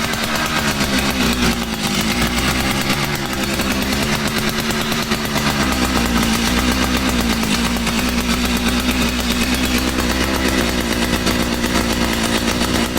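Vintage Stihl 042 two-stroke chainsaw engine running steadily at speed with a constant buzzing pitch.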